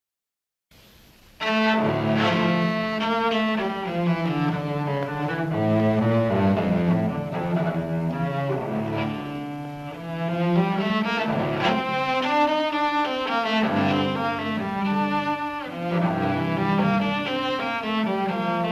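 Background music played on bowed string instruments, with a cello-like low line, starting about a second in after a moment of silence.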